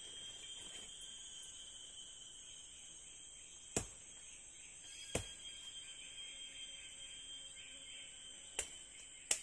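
Steady insect chorus, a shrill drone on two continuous high tones. Four sharp clicks or knocks cut through it, about four seconds in, again a second and a half later, and twice close together near the end.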